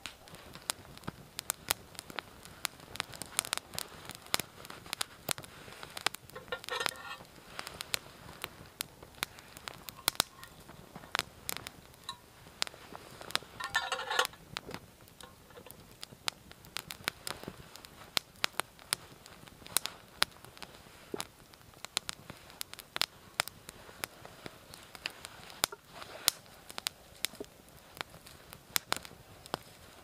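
Small campfire crackling, with sharp irregular pops throughout and two brief denser spells of spitting, about a quarter of the way in and again near the middle.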